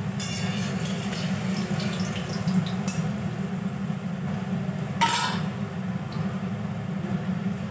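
Potato pieces sizzling as they fry in hot oil in an aluminium kadai, with a metal spatula scraping and turning them in the first few seconds. A sharp clink about five seconds in.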